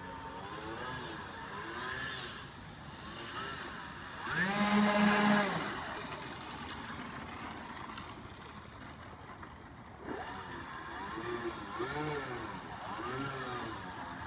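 Electric motors of a radio-controlled A-12 Blackbird model, whining as the throttle is blipped up and down during a taxi test. The motors surge loudest for about a second from about four seconds in, then give a run of shorter rises and falls near the end.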